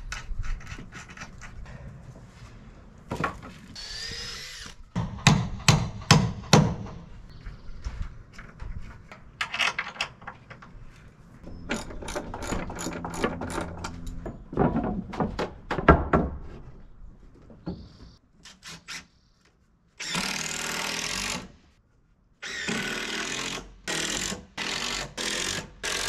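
Cordless drill driving screws into wooden deck boards in several short runs, between sharp knocks of wood and tools being handled.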